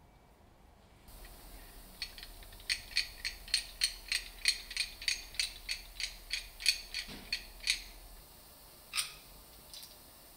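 A quick run of sharp mechanical clicks, about three to four a second, like a ratchet, over a low hum. A single click follows near the end.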